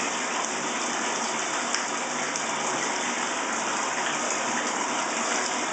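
Water running steadily into a bathtub as a wet West Highland white terrier is bathed, a constant even rush with no breaks.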